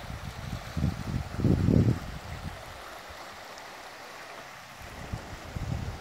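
Steady rushing of a mountain creek, with wind buffeting the microphone in low rumbling gusts, the strongest about a second and a half in and another near the end.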